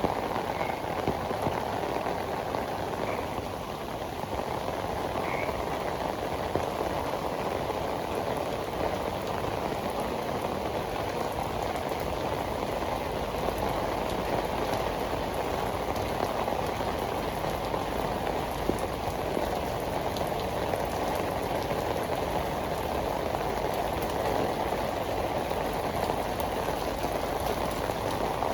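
Heavy tropical rain pouring steadily onto pavement and street surfaces. A few faint short calls sound through the rain in the first six seconds.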